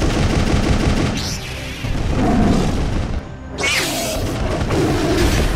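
Cartoon battle sound effects: rapid gunfire and booming explosions over background music, with a short whoosh about two-thirds of the way through.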